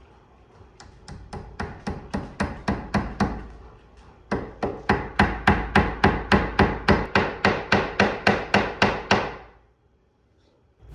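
Hammer striking, in two long runs of quick, even taps about five a second. The first run grows louder, then after a short pause a steady second run follows.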